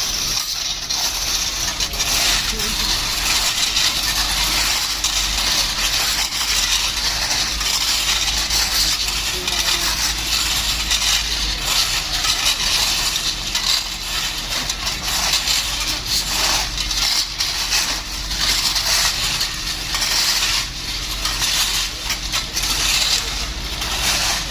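Railway track construction work: a steady din of scraping and clattering with many small, rapid impacts throughout.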